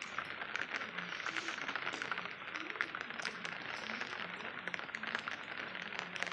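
Steady rain falling, a constant hiss with many small drops ticking on hard surfaces.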